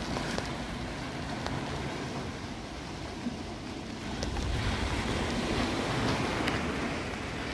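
Wind buffeting the microphone over a steady wash of water at the shoreline, growing louder about four seconds in.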